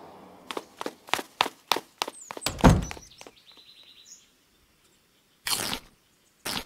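A quick run of sharp clicks and knocks, then a single heavy thump about two and a half seconds in, followed by a brief rapid ticking and two short bursts of noise near the end.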